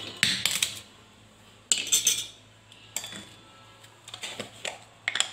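Metal spoon clinking and tapping against a stainless steel plate and spice containers while spice powder is measured out: a handful of short, separate clinks, loudest just after the start and around two seconds in.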